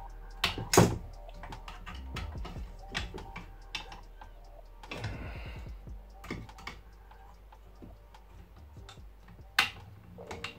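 Irregular clicks and knocks of hardware being handled and M5 bolts tightened on a 3D printer frame, with a short scraping rub about five seconds in, over faint background music.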